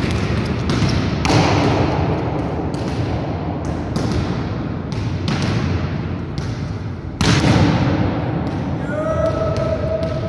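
Volleyballs being struck and bouncing on a sports-hall floor: a string of irregular thuds that echo around the gym, the loudest about seven seconds in, around the moment of a spike at the net.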